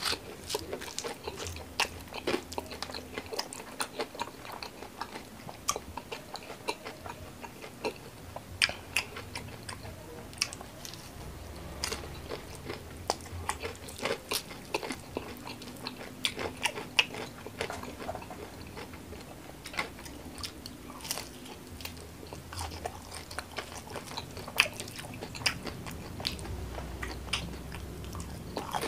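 Close-up chewing and crunching of crispy battered fried mushrooms with chili sambal, with many irregular sharp mouth clicks and crunches.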